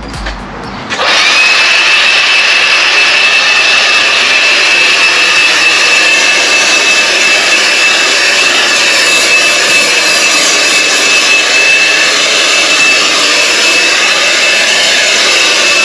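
Makita 18 V cordless blower switched on about a second in, spinning up and then running loud and steady with a high, even whine.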